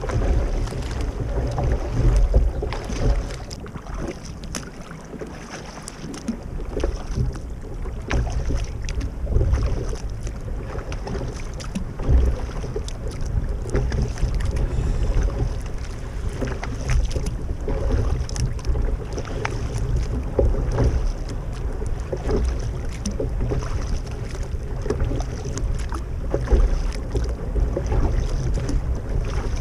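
Kayak paddle strokes dipping and splashing in the water, repeated every second or two, over a steady low rush of wind on the microphone.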